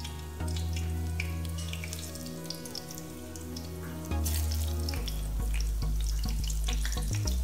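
Spring rolls frying in shallow oil in a frying pan, a steady sizzle with small crackles that gets louder about four seconds in as more rolls are laid into the oil. Background music with sustained low notes plays underneath.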